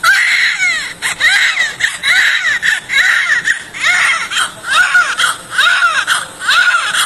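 Newborn baby crying, starting suddenly and going on in short, repeated wails about one a second, each rising and then falling in pitch.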